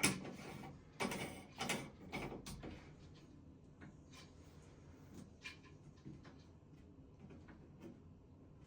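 Shower valve parts being handled and fitted during a cartridge change: several sharp clicks and scrapes in the first couple of seconds, then only faint small clicks.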